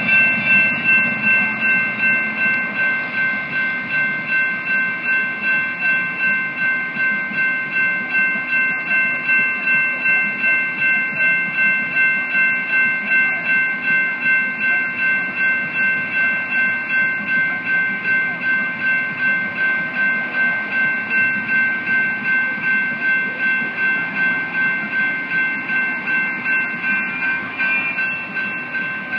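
General Signal Type 2 electronic crossing bells ringing together, a steady high ding repeating about twice a second. The crossing is active, warning that a train is approaching.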